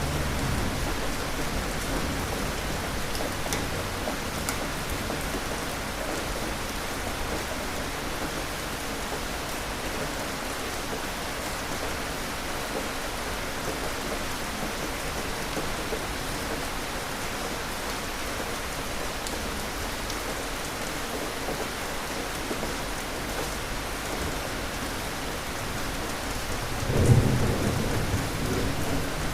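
Steady heavy rain falling, with a low thunder rumble dying away in the first second. About 27 seconds in, a sudden loud thunderclap breaks and rumbles on.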